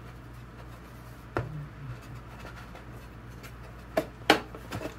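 Hands working a dowel pin into the hole of a wooden side panel: faint rubbing and scraping, with a sharp knock about a second and a half in and two more near the end, the second of them the loudest.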